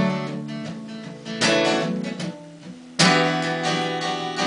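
Acoustic guitar strummed in a slow rhythm, one strong chord about every second and a half, each left to ring and die away before the next.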